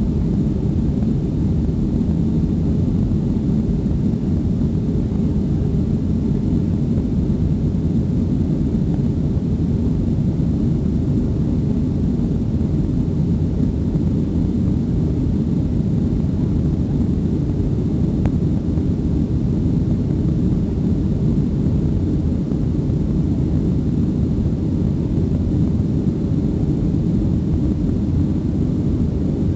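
Boeing 737's CFM56 turbofan engines at high thrust, heard from inside the cabin through lift-off and the initial climb: a loud, steady low rumble.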